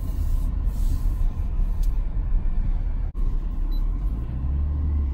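Low, steady rumble of a Porsche Cayenne heard from inside the cabin as it crawls over an off-road gravel track. The sound drops out sharply for a moment about three seconds in, then the rumble carries on, a little stronger near the end.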